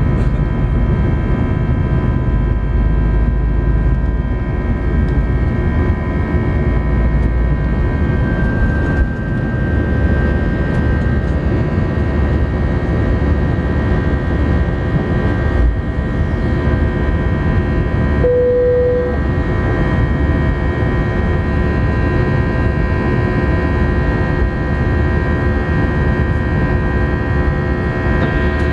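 Airbus A319 jet engines at takeoff thrust, heard from inside the cabin through the takeoff roll, liftoff and initial climb: a steady whine of several tones over a loud, constant rumble. A low thump comes about 16 seconds in.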